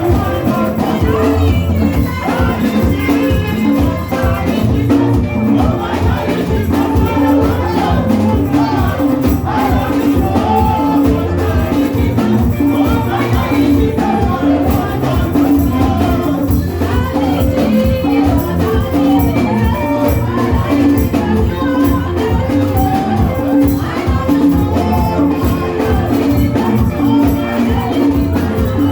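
Loud, upbeat praise music with a steady beat, heavy bass and percussion.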